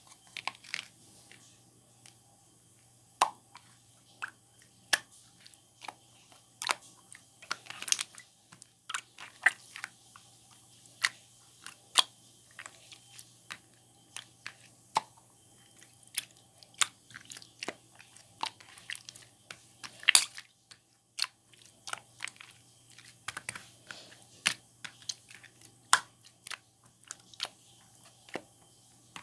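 Slime being squeezed and worked by hand, making irregular sharp clicks and pops, several a second at times.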